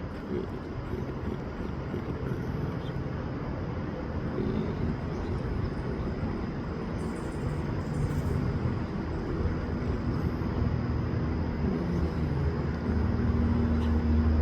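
Steady low outdoor rumble, like distant traffic, slowly growing louder, with a low steady hum coming in near the end.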